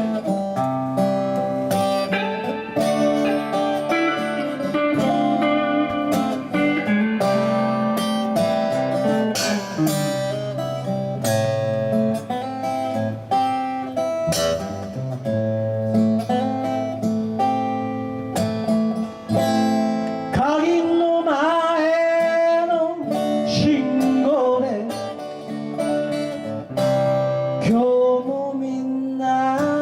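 Acoustic guitar music: the instrumental introduction of a song, with plucked and strummed chords and a lead line whose notes bend and waver about twenty seconds in.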